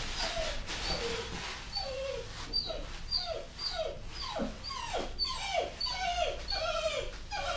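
A dog whining over and over: a string of short whimpers, each falling in pitch, about two a second.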